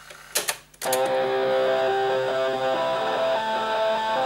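A few sharp clicks, then music playing back from a cassette recorded on a Bang & Olufsen BeoCord 1100 deck. The music starts just under a second in and keeps going, and the playback is still distorted.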